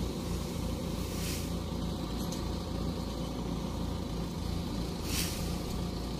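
Rice combine harvester engine idling steadily, with a constant low hum. Two faint brief hisses come through about a second in and near the end.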